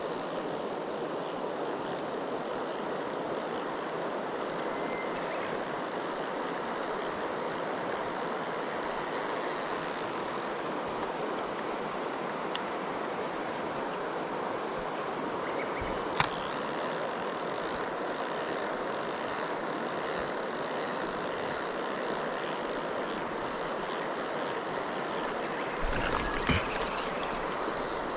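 Mountain stream water rushing steadily, with one sharp click about halfway through and a few light knocks near the end.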